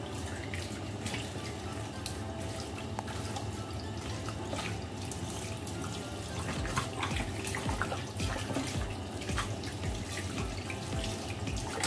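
Tap water running into a plastic basin in a stainless steel sink as beef tripe is washed and wrung by hand, with frequent splashes, more of them in the second half.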